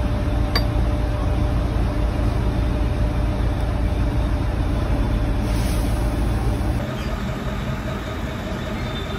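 Steady low mechanical hum and rumble, easing slightly about seven seconds in.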